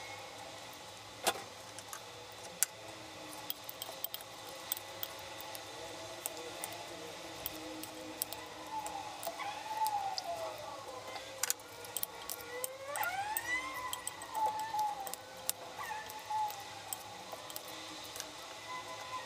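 Metal spoon clicking and clinking against a ceramic bowl while a sliced cucumber, tomato and onion salad is tossed with its dressing. A faint wavering pitched sound rises and falls in the middle.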